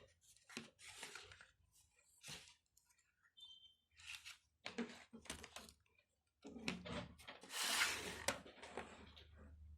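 Toy packaging being handled: irregular rustling and crinkling in short bursts, the loudest about eight seconds in.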